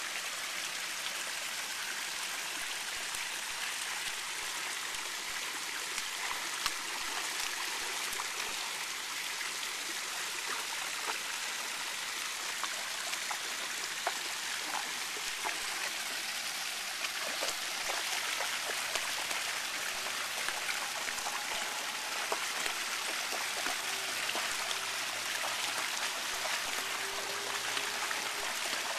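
Fountain jets pouring steadily into a shallow pool, a constant splashing with many small drips and plops, and the water stirred by a dog wading through it.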